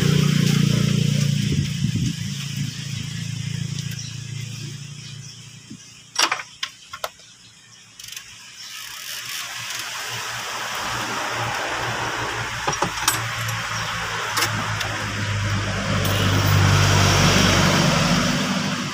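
Motor vehicles passing by, engine noise swelling and fading away twice, with a few sharp metallic clinks of hand tools in the lull between them.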